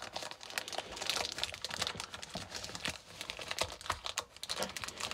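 Fingers picking at and handling the clear plastic wrap on a cardboard model-train box: an irregular run of light clicks, taps and crinkles.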